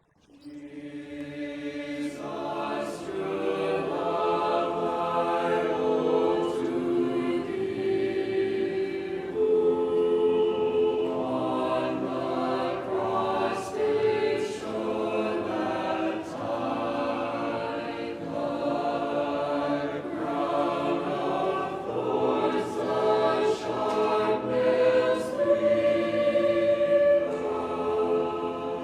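Choir singing in church, several voices sustained together, starting up out of silence about a second in.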